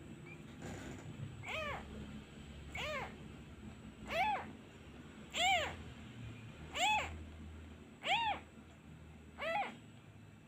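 A very young kitten mewing: seven short cries in a steady row, a little over one a second, each rising then falling in pitch. It is crying for its mother now that the comforting hand has been taken away.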